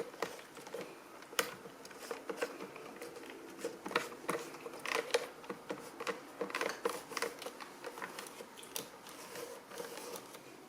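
A wet wipe being scrubbed around the plastic parts of a Dyson V6 cordless vacuum by hand: irregular rustling and rubbing with frequent small clicks and knocks of plastic as the parts are handled.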